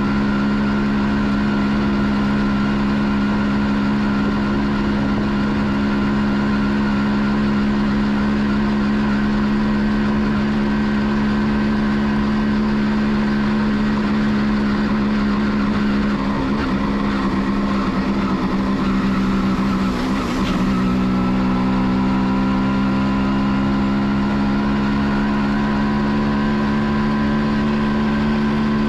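1989 Kawasaki B1's single-cylinder two-stroke engine running at a steady cruise under way, with wind and road noise on the microphone. About two-thirds of the way through its pitch wavers and dips briefly, then climbs gently as the bike pulls away again.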